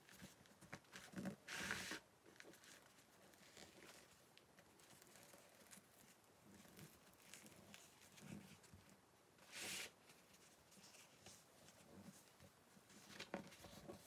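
Quiet rustling and rubbing of a fabric apron being rolled up by hand on a cloth surface, with two short, louder rasping scrapes, about two seconds in and near ten seconds.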